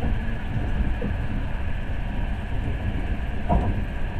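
Passenger train running at speed, a steady low rumble of wheels and carriage heard from inside the car, with one brief sharper sound about three and a half seconds in.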